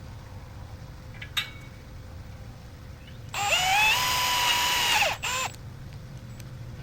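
Power drill driving a screw through a metal latch bracket: the motor whines up to speed, runs steadily for about two seconds and stops, then gives a short second burst.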